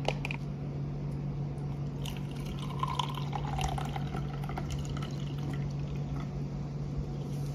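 Water poured from a jug into a stainless-steel-lined tumbler of instant coffee powder, a steady splashing fill starting about two seconds in, over a constant low hum.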